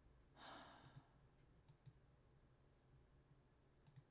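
Near silence: room tone with a few faint clicks and a soft short hiss about half a second in.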